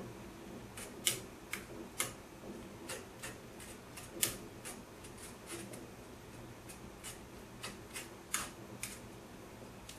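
Metal spoon clinking and scraping against a small wire-mesh strainer in a pot, in irregular light taps, a dozen or so, pressing marinated garlic and chili so their aroma goes into the braising liquid.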